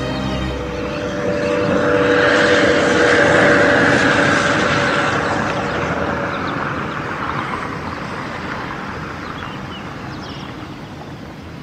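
A car driving past: engine and tyre noise swelling to a peak a few seconds in, then slowly fading away.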